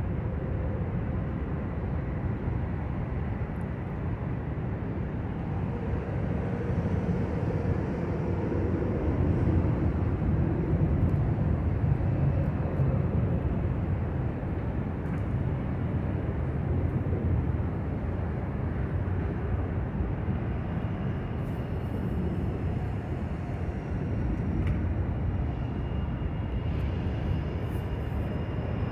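Steady low rumble of distant engines, swelling a little about ten seconds in.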